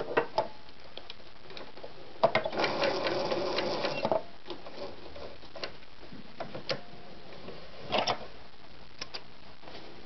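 Veritas 8014/4143E electric sewing machine stitching a buttonhole in denim in one short run of about two seconds, after a brief stop. The rest is scattered clicks and knocks as the machine is handled and the fabric is taken out.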